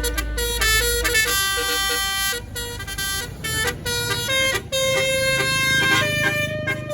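Tour bus's Basuri telolet musical air horn playing a tune: a run of loud held notes, each stepping to a new pitch, with short breaks between phrases.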